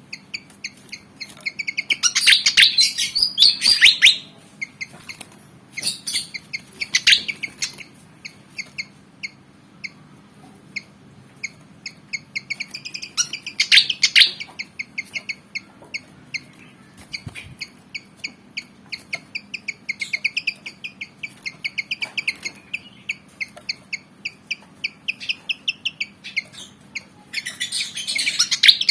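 Malaysian pied fantail singing a long run of quick, high chirping notes, several a second, broken by louder bursts of chattering song about two seconds in, around seven and fourteen seconds, and near the end.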